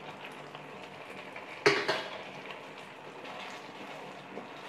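A single sharp metal clank against a cooking pan about a second and a half in, over the faint steady simmer and stirring of a thick gravy.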